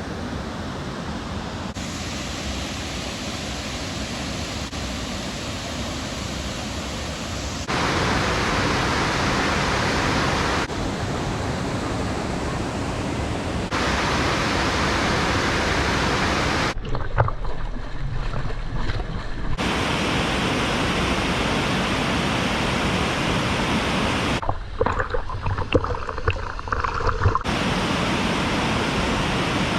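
Waterfall rushing water, a steady dense noise that changes in level and tone abruptly every few seconds as the shots change. In two short stretches the water is fainter and wind buffets the microphone.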